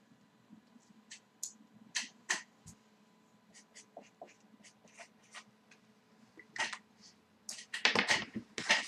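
Scattered small clicks and taps from objects being handled, irregular and growing denser near the end, over a faint steady hum.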